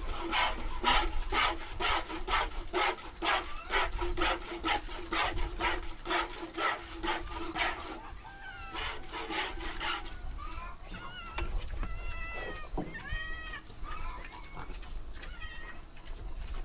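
Hand milking a cow into a bowl: milk squirting from the teats in a fast even rhythm of about three squirts a second for roughly ten seconds. The squirts then stop and cats meow several times, begging for the milk.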